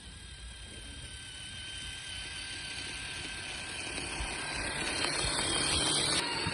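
Traxxas TRX-4 Sport RC truck on Deep Traxx tracks driving: a steady electric motor and drivetrain whine that grows louder. Near the end a rushing hiss joins it and then stops suddenly.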